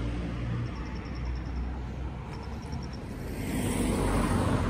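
A car passing close by on the street, its engine and tyre noise swelling to a peak near the end.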